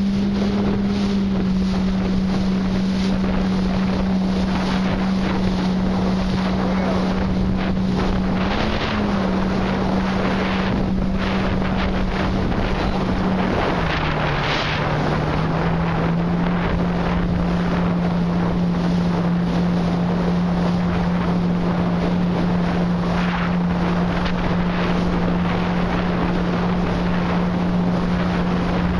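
Jet ski engine running at speed, a steady drone whose pitch dips briefly about halfway through and then settles slightly lower, with wind buffeting the microphone.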